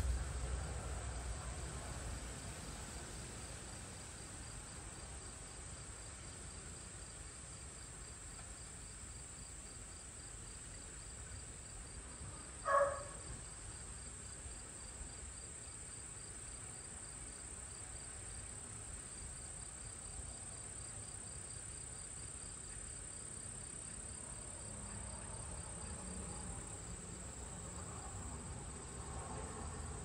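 Insects trilling steadily at a high pitch, with a fainter pulsing chirp under it. About halfway through comes one short call from a wild turkey.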